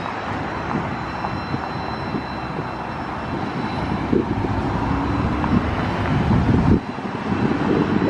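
Road traffic: cars driving past close by, a steady noise of engines and tyres that grows louder in the second half.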